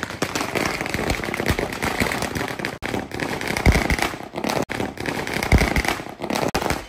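A string of firecrackers going off in a rapid, continuous crackle of pops, with two heavier bangs about four and five and a half seconds in.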